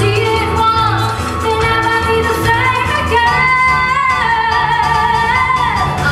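Pop-style song with a singer holding long, wavering notes over a pulsing bass line.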